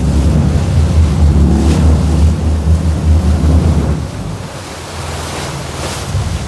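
Wind buffeting the microphone over the rush of sea water around a moving sportfishing boat. The heavy low rumble eases about four seconds in.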